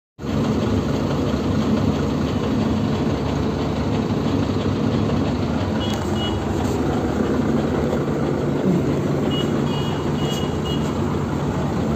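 Gurdeep 527 combine harvester's diesel engine idling steadily. A few faint, short high beeps come in about six seconds in and again near ten seconds.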